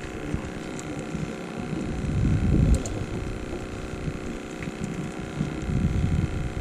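Steady hum of a boat engine, with wind gusting over the microphone and a couple of light clicks a little before halfway.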